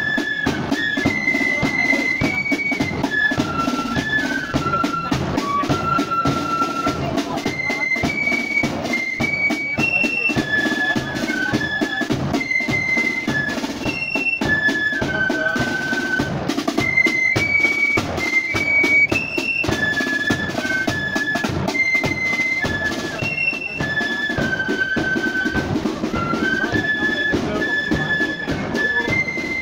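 Marching flute band playing a tune in unison: flutes carry a high melody, repeated as a phrase, over rattling side drums and a steady bass drum beat.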